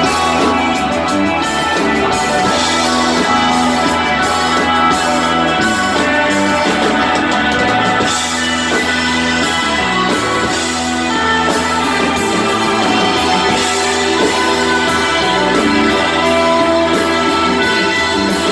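Live rock band jamming without vocals: electric guitar, bass guitar and drum kit with cymbals playing loudly and steadily.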